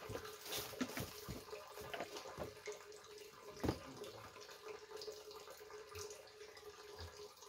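Faint, steady running of spring water pouring from a spout, with a few soft knocks.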